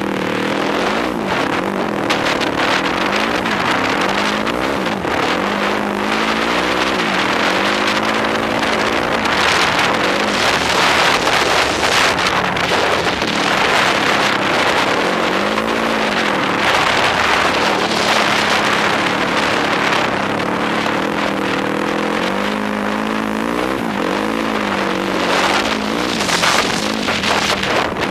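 Yamaha YFZ quad's engine running under way, its pitch rising and falling again and again as the throttle is worked, with wind rushing over the microphone.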